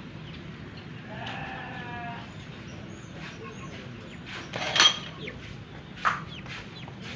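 A single wavering bleat from a goat or sheep lasting about a second, followed by a loud sharp sound about five seconds in and a shorter one a second later.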